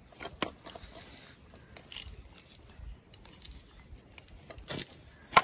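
Steady high-pitched chirring of insects, with a few scattered clicks and rustles as folded leaves are pushed into the mouth of a green bamboo tube. A sharp knock near the end is the loudest sound.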